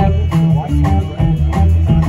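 Live band playing loudly: electric guitar over bass guitar and drums.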